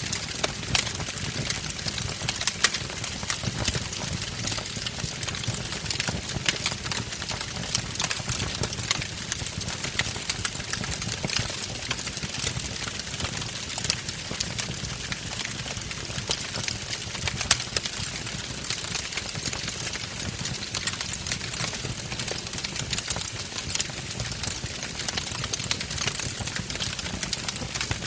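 Logs burning in a wood fireplace: a steady low rumble of flames with frequent sharp crackles and pops, a couple of them louder than the rest.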